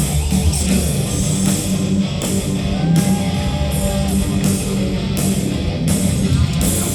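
Rock band playing live, with loud electric guitar over a steady, dense band sound.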